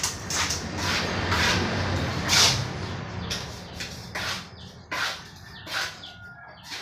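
Steel trowel throwing wet cement mortar onto a hollow-block wall and working it on: a run of short slaps and scrapes, busiest in the first three seconds.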